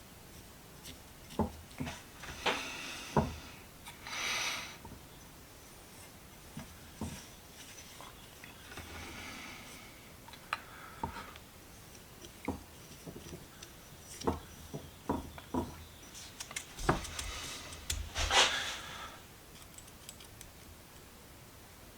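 Workbench handling sounds while another coat of cold blue goes onto steel pliers: scattered light taps and clicks, with a few brief rubbing swishes.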